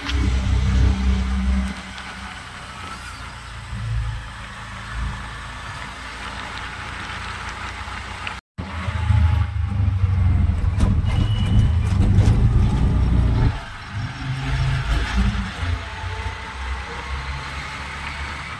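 Auto-rickshaw running along an open road, heard from inside the cab: a steady engine and road rumble. It swells louder for the first couple of seconds and again from about nine to thirteen seconds in, and the sound cuts out for a split second around the middle.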